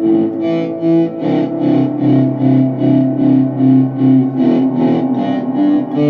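ESP LTD M-1000 electric guitar played through a Behringer Super Fuzz, an Aalberg Audio TRYM tremolo and ROM reverb into a VOX AV4TV amp: fuzzed, sustained notes pulsing on and off about four times a second with the tremolo, moving to new notes about a second in and again after about four seconds.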